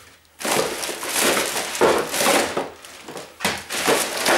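Plastic bag crinkling and rustling as plastic odds and ends are packed into it. It comes in two spells with a short lull a little before the end.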